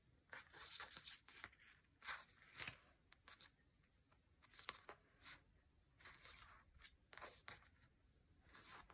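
Faint, irregular rustling and scraping of paper and thread as pairs of binding threads are pulled tight through the sewing holes of a hand-bound book.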